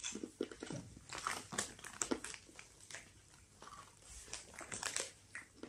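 A child chewing a mouthful of avocado maki sushi close to the microphone: irregular soft wet smacks and clicks of the mouth.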